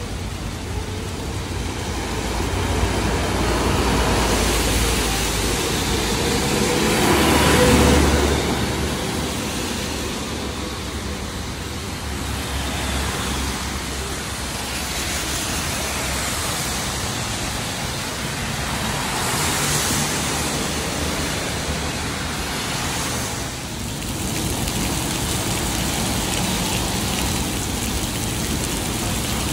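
Steady wash of rain and wet-road traffic noise. It swells louder about seven to eight seconds in, as a vehicle passes.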